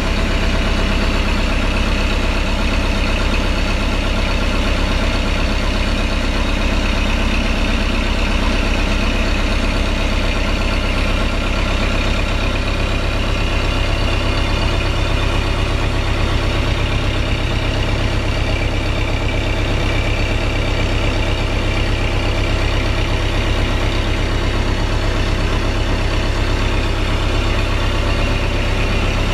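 Sumitomo S160 excavator's diesel engine running steadily at idle, heard from inside the cab.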